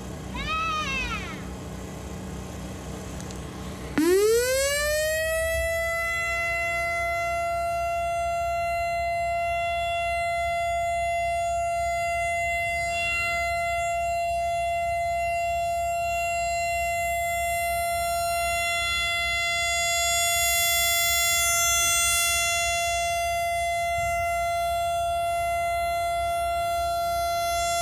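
Whelen WS-3000 outdoor warning siren: a brief rising-and-falling chirp, then about four seconds in its tone sweeps quickly up and holds one steady high note, swelling slightly in loudness about two-thirds of the way through.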